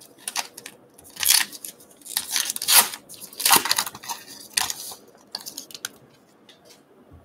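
Wrapper of a Topps Gypsy Queen baseball card pack torn open and crinkled by hand in several short rustling bursts, dying down to faint handling noise after about five seconds.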